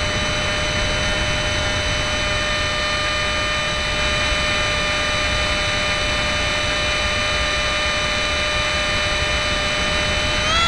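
Electric ducted-fan motor of a Robbe MiG-15 model jet, heard from a camera on board in flight: a steady high whine over rushing air, its pitch stepping up near the end as the throttle is advanced.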